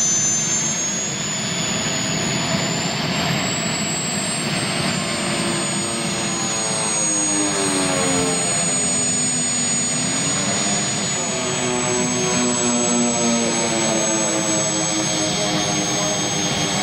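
Twin turboprop engines of a radio-controlled scale model FMA IA 58 Pucará in flight: a steady high turbine whine under the propeller drone. The engine tone falls in pitch about halfway through, then rises again a few seconds later.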